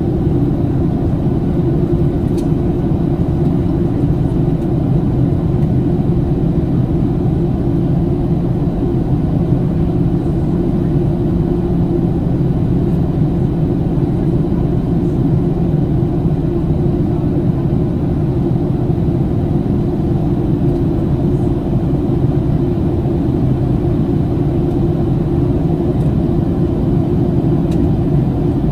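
Steady low cabin drone inside a Boeing 737-700 on the ground after landing, its CFM56-7B engines running at idle.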